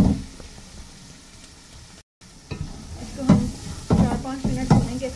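A spatula scraping and knocking against an aluminium pot as chicken and ground spices fry, with sizzling underneath. Quieter for the first couple of seconds and broken by a brief dropout, then stirring strokes about every half to one second.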